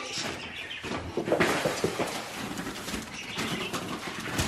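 Wrapping paper crinkling and tearing in irregular bursts as a gift is unwrapped.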